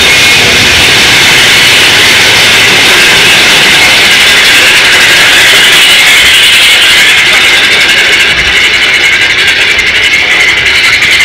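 Mine-train roller coaster running along its track: a loud, steady rush of noise, with a fast rattle from the train joining in about eight seconds in.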